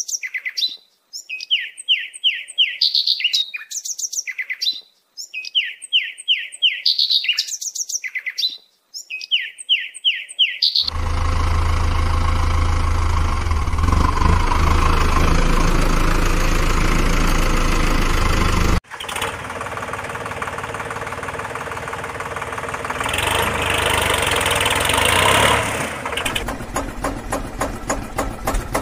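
Bird chirping in quick repeated runs of falling notes, with short silences between, for about the first ten seconds. Then a tractor engine comes in running steadily with a deep hum, cuts off suddenly about two-thirds through, and a second engine runs on, ending in a quick, even chugging.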